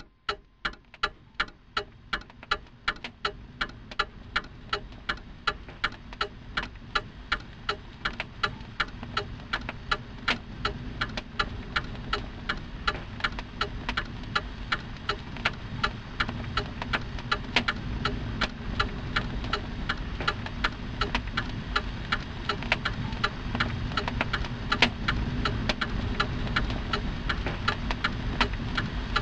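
A clock ticking at a steady, fast, even beat, over a low rumble that slowly swells louder.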